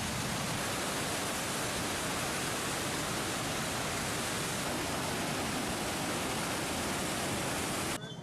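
A loud, steady rushing of water, even and unbroken, which cuts off suddenly near the end.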